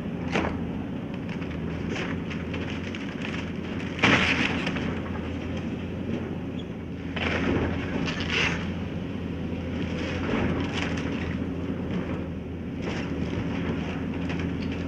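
Heavy diesel machinery running steadily at a demolition site, with sharp bangs and clanks every few seconds, the loudest about four seconds in.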